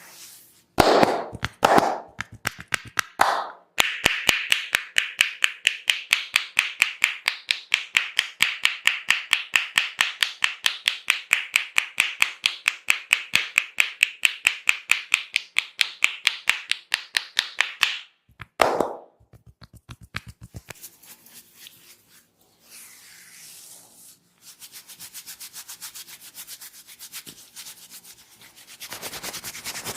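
Barber's hands rubbing quickly over a person's head and hair during a head massage. A few slower strokes come first, then a long fast even run of rubbing strokes, several a second, that stops abruptly. A fainter, quicker run of strokes follows near the end.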